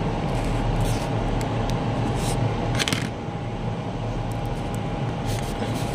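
Light clicks and scrapes of metal tweezers and fingers handling a wire on a circuit board, heard over a steady background hum.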